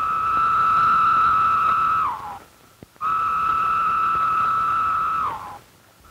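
Periodical (17-year) cicada song: two calls, each a steady high drone of about two seconds that drops in pitch at its end.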